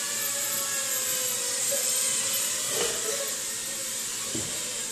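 Micro FPV racing quad's small motors and propellers buzzing in a high whine, the pitch wavering up and down as the throttle changes.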